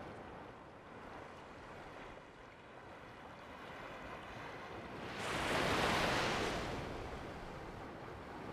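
Ocean surf breaking on a rocky shore: a steady wash of sea water, with one louder wave surging in about five seconds in and fading over a couple of seconds.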